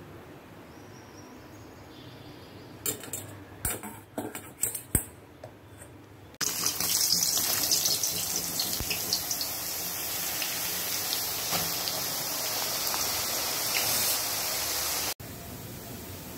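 A few sharp clicks and clatters, then thin potato slices deep-frying in hot oil in a wok: a loud crackling sizzle that starts suddenly a few seconds in and cuts off near the end.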